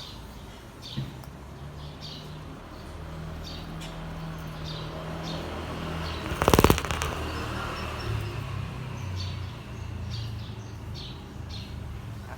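Short high bird chirps repeating about once or twice a second over a low steady hum, with one brief loud flurry of rapid beats about six and a half seconds in.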